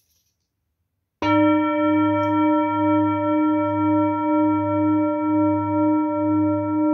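Large hand-beaten singing bowl, resting on the fingertips, struck once about a second in and left ringing: a low tone with several higher overtones, pulsing in a slow wobble.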